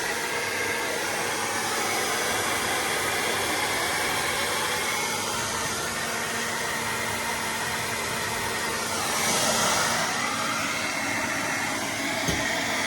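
Handheld hair dryer running steadily, blowing hot air with a continuous rushing hiss; the hiss briefly grows louder and brighter about nine seconds in.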